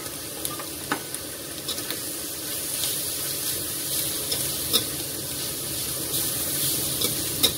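Shredded chicken sizzling in a hot metal wok as it is stir-fried, a metal spoon scraping through it with a few sharp clicks against the pan.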